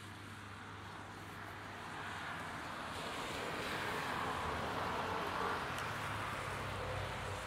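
A vehicle passing on a wet street: tyre hiss swells over the first few seconds and stays up, over a low engine hum.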